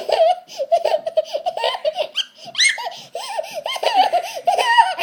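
A toddler laughing hard, one high-pitched peal after another with only short pauses between.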